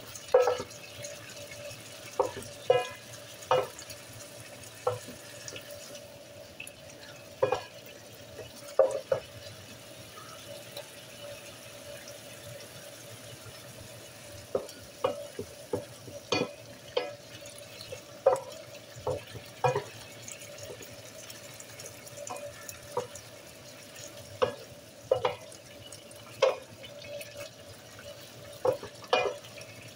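Wooden spoon stirring diced chicken frying in oil in a nonstick skillet: irregular knocks and scrapes of the spoon against the pan over a low, steady sizzle, with a faint steady hum underneath.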